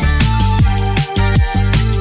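Electronic background music with a steady drum beat: deep bass kicks that drop in pitch under sharp snare and hi-hat hits.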